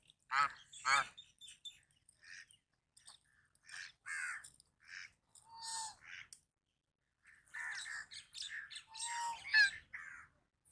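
Geese honking in a series of separate short calls with brief quiet gaps between them. Two loud honks come about half a second in, and a cluster of louder calls comes near the end.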